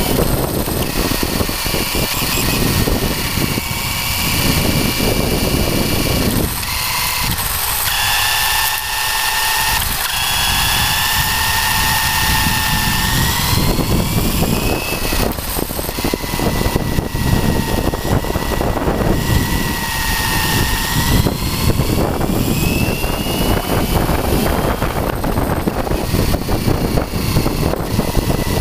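Traxxas Slash RC truck's electric motor and drivetrain whining, the pitch climbing and falling again and again as the truck speeds up and slows, heard from a camera on the truck. A steady rushing noise from the tyres and wind lies beneath, and the low part of it drops away for several seconds in the middle.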